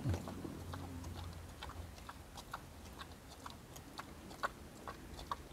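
A wild boar chewing raw cassava root: faint, irregular crunching clicks.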